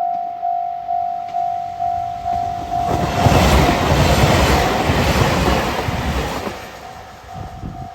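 Japanese level-crossing warning bell ringing a little over twice a second, then a train passes through the crossing for about three and a half seconds, its wheels and running noise drowning the bell, which is heard again faintly near the end.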